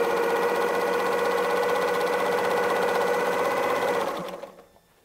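Pfaff sewing machine running steadily at an even speed, stitching through a quilt sandwich during free-motion quilting. The motor winds down and stops about four seconds in.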